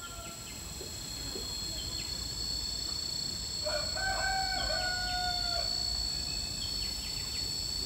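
A rooster crowing once, a single call of about two seconds in the middle, over a steady high-pitched background drone.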